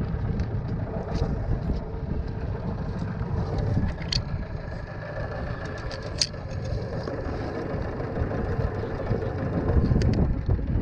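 Small boat's outboard motor running steadily at low speed, with a couple of sharp clicks about four and six seconds in.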